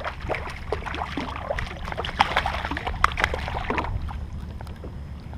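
Irregular splashing, knocks and crackles for about four seconds as a small hooked redfish is brought alongside the kayak, then quieter. A low wind rumble runs underneath.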